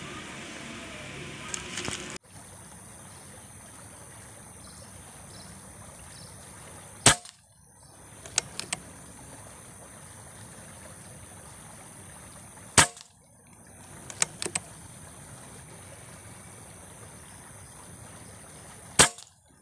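Air rifle firing 4.52 mm slugs: three sharp shots about six seconds apart. The first two are each followed about a second and a half later by a few light clicks.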